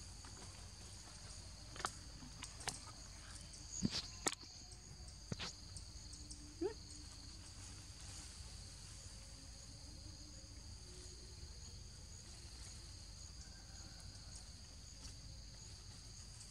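Steady high-pitched drone of forest insects, several tones held together throughout. A few sharp clicks come between about two and five and a half seconds in, and one brief rising squeak near seven seconds.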